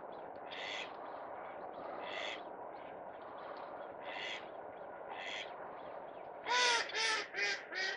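Short harsh bird calls spaced through the first few seconds, then, about six and a half seconds in, a duck quacking in a loud run of about three calls a second that grow shorter and fainter.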